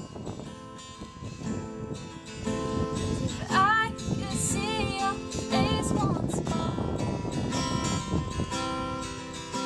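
Acoustic guitar strummed, with a woman singing along; her voice comes in with a few held, wavering notes about three and a half seconds in.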